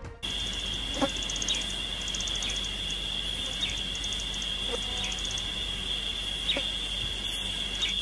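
Natural ambience: a steady high-pitched insect drone with trains of rapid chirping pulses above it, and a few short bird chirps scattered through.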